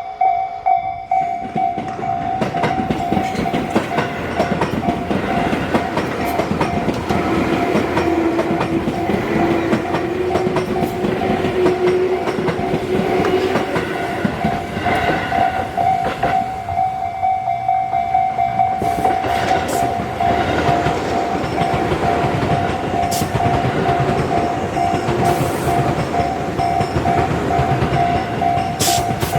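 Japanese railroad crossing's warning bell ringing in a steady repeating pattern while an electric train passes, with wheel clatter over the rails and a few sharp clicks in the second half.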